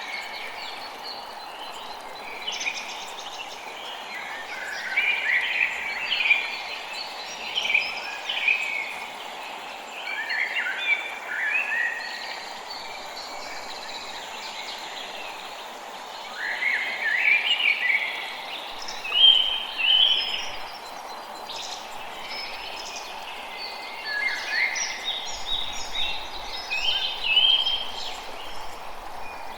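Wild birds singing in a forest: bouts of quick, chirping song phrases every few seconds, over a steady background hum of ambient noise.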